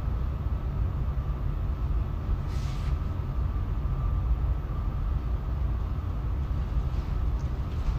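Steady low rumble and hum with no clear events, and a brief soft hiss about two and a half seconds in.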